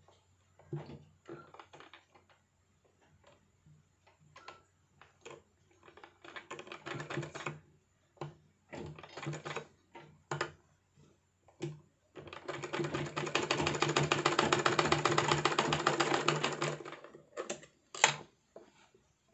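Sewing machine stitching fabric in short stop-start bursts, then one steady run of about five seconds, the needle ticking fast and evenly. A single sharp click near the end.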